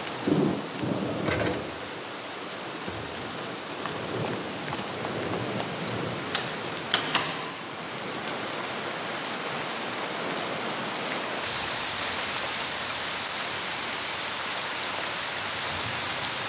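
Steady rain falling on wet pavement, an even hiss that grows brighter and louder about eleven seconds in. A few low thumps come in the first two seconds, and two sharp clicks near the middle.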